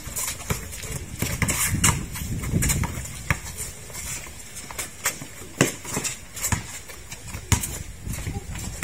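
A basketball being dribbled on an outdoor hard court: irregular, sharp thuds of the ball hitting the surface.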